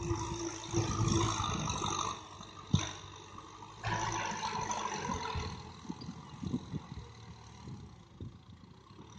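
Kubota tractor's diesel engine running as it pulls a rear rotary tiller through dry soil, with a sharp click about three seconds in.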